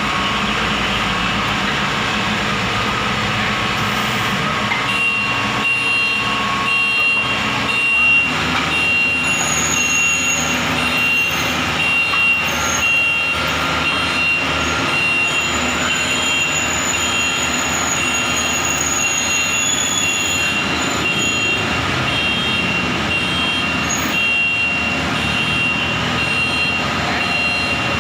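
Rice combine harvester's diesel engine running steadily under load, with a repeating high-pitched electronic beep starting about five seconds in.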